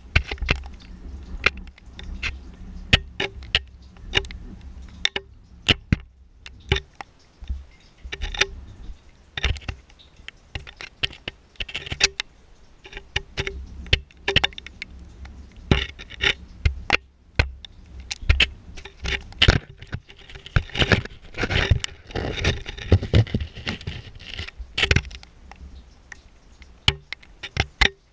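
A camera lowered down a rock-walled well shaft, knocking and scraping against the stone sides: irregular clicks, knocks and scrapes, thickest about three-quarters of the way through.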